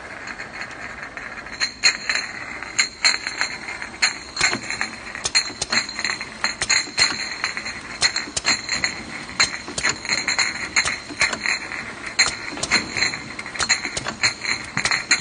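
Automatic linear self-adhesive labeling machine running with amber glass bottles on its conveyor: a thin high whine under frequent, irregular clicks and glassy clinks of bottles knocking together, which start about two seconds in.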